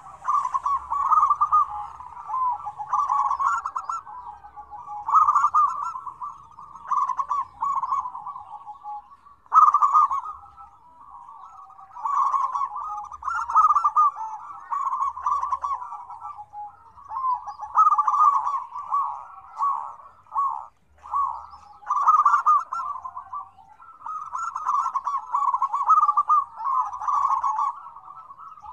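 Several zebra doves (perkutut) cooing together: rapid staccato cooing phrases follow one another and often overlap, with only brief gaps.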